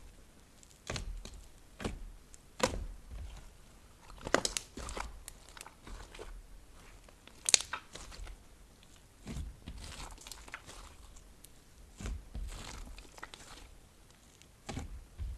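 Slime being kneaded and squished by hand, with irregular sticky pops and crackles, one sharper pop about halfway through.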